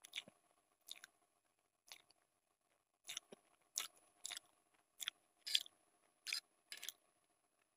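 A person chewing a mouthful of Maggi noodles: a run of short mouth sounds, sparse at first and then about two a second from about three seconds in.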